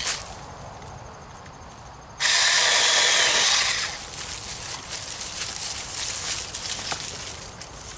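Battery-powered 6-inch mini chainsaw running in a short burst of about a second and a half, starting abruptly about two seconds in. It is followed by uneven rustling with small clicks and crackles.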